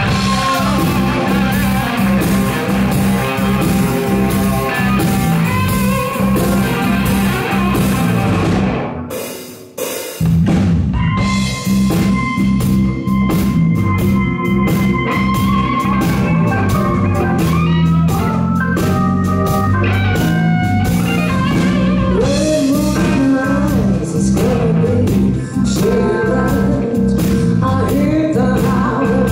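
Live blues-rock band playing loudly: electric guitar, electric bass and drum kit. The band stops sharply about nine seconds in, the sound dies away for about a second, then the full band crashes back in; a woman's singing voice comes in near the end.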